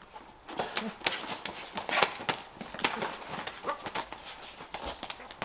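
A quick, irregular run of hand claps and slaps as two people trade an elaborate handshake.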